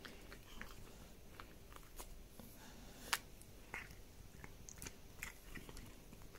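A Korat cat chewing a dried duck fillet treat: faint, scattered crunching clicks, the loudest about three seconds in.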